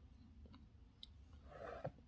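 Near silence: room tone with a few faint small clicks and a brief soft rustle near the end.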